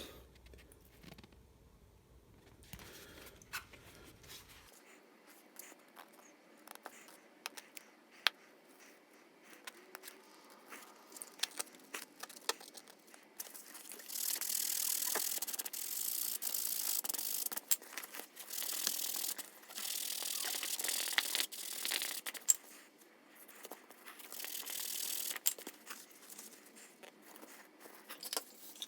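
Hands working on a bicycle inner-tube repair: scattered small clicks and taps, then from about halfway three hissing, scraping stretches of a few seconds each.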